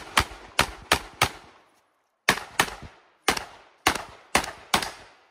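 Pistol fire: about a dozen shots, mostly in quick pairs, with a pause of about a second after the first five before the shooting resumes.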